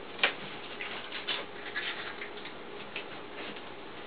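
A sharp click, then a string of light, irregularly spaced clicks and taps over a faint steady hum.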